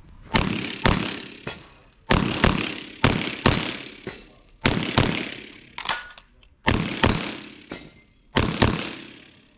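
Rapid pistol fire from a custom 2011 chambered in .357 SIG: shots mostly in quick pairs, about a dozen in all, with brief pauses between strings. Each shot is loud and sharp, with a short echo off the concrete bay walls.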